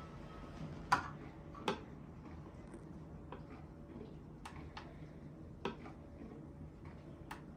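Scattered light clicks and taps, about seven of them at irregular intervals, the sharpest two in the first two seconds, as the plastic parts of a capsule coffee machine are handled. A faint steady low hum lies underneath.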